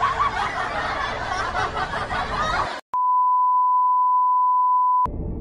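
A steady 1 kHz test-card tone, the beep that goes with TV colour bars, comes in about three seconds in after a sudden drop-out, holds for about two seconds and cuts off abruptly. Before it there is an even rush of background noise.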